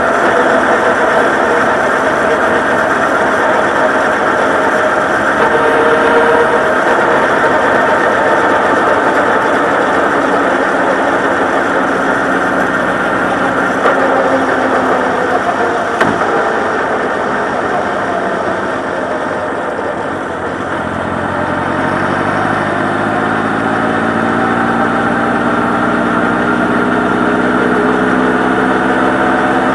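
Honda CB1300 Super Bol d'Or's inline-four engine running, its pitch rising and falling with the throttle and climbing steadily over the last several seconds.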